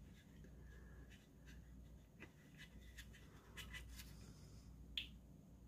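Faint scratching and light ticks of a small model building being handled and pressed on a cutting mat, with one sharper click about five seconds in.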